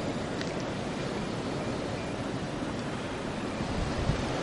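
Steady blizzard wind blowing, an even rushing noise with no distinct events.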